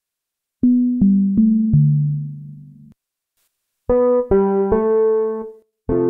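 Korg Opsix Native FM software synthesizer playing an electric piano preset: four single notes about a second in, each ringing out and dying away, then after a pause three brighter notes in quick succession, and another starting near the end.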